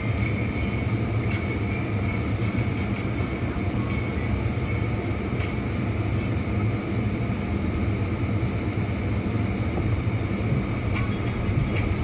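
A vehicle running steadily: an even low rumble, with scattered faint ticks.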